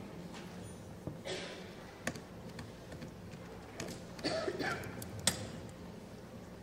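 Quiet auditorium room tone with a steady low hum, broken by scattered soft clicks and rustles; a brief noisy rustle about four seconds in and a sharp click a little after five seconds are the loudest moments.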